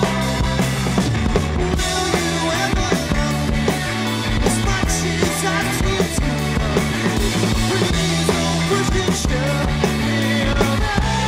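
Rock band playing live on a club stage, with drum kit, bass, guitar and keyboards together in a full-band passage. The drums keep a steady beat under sustained bass notes.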